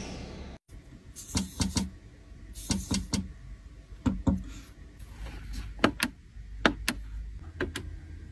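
A series of short clicks and taps from pressing the centre-console touchpad and buttons of a Mercedes-Benz GLS 450. They come in small groups of two or three, with sharper single clicks later on. A low steady hum comes in near the end.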